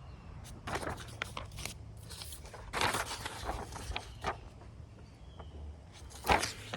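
Paper rustling and crinkling in short scattered bursts as handwritten list sheets are handled, over a low steady hum.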